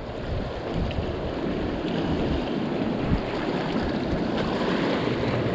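Steady rush of choppy river water below a dam, washing against a rocky bank.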